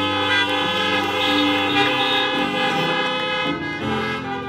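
Organ playing held chords that change a few times, each chord sustained without dying away.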